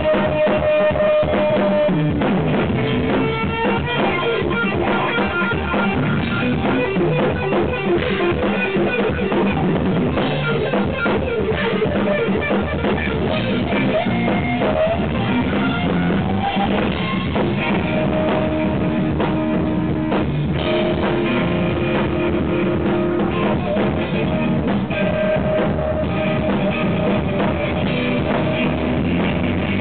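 Instrumental jazz-rock fusion played live: lead electric guitar holding long notes, with a bent note about halfway through, over busy drum kit. The recording is overdriven and distorted.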